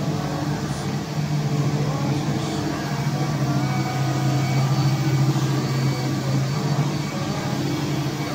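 Steady low hum of machinery in a CNC machining workshop, with a few faint steady tones above it.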